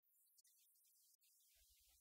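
Near silence: faint hiss of room tone.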